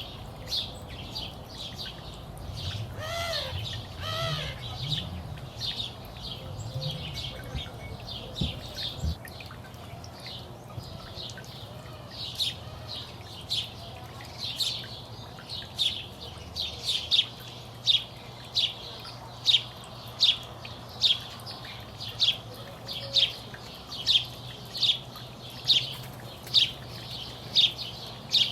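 Small songbirds chirping: scattered high chirps at first, then one bird's steady chirp repeated a little more than once a second through the second half.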